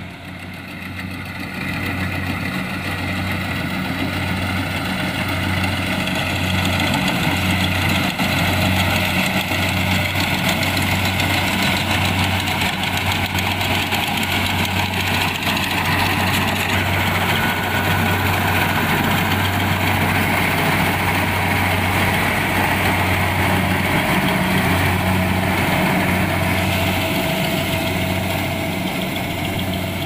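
Kubota DC-70 Plus rice combine harvester running steadily, its diesel engine giving a low, even hum. The sound grows louder over the first six seconds or so, then holds steady.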